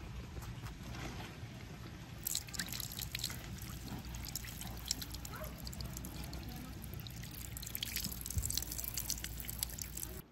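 Carbonated spring water running from a drinking-fountain tap and splashing over a hand into a stone basin. The splashing gets louder about two seconds in.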